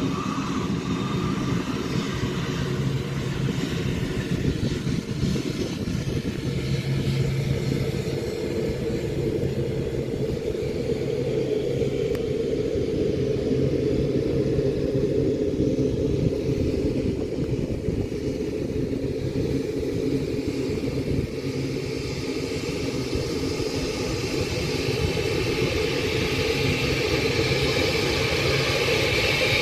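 Jet engines of a Boeing 787 taxiing at low power: a steady rumble with a hissing whine, the whine growing louder over the last several seconds as the airliner turns toward the listener.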